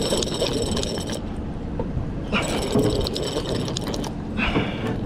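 Conventional saltwater fishing reel being cranked by hand, its gears and pawl rattling with a high whir, while a fish is reeled up to the boat. It comes in three spells of cranking with short pauses between them, over a low rush of wind on the microphone.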